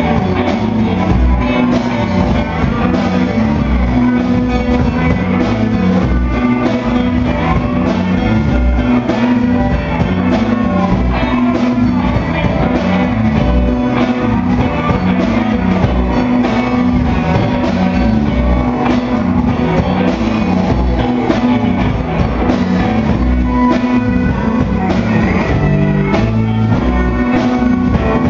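Live rock band playing: electric guitars over a drum kit keeping a steady beat, loud throughout.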